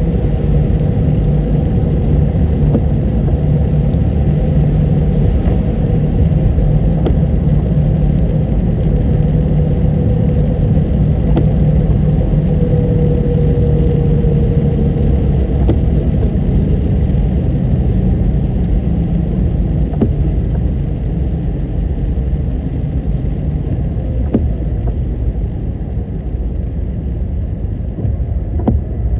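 Steady car road and engine noise heard from inside a moving car, a continuous low rumble with a faint whine that fades out about halfway through.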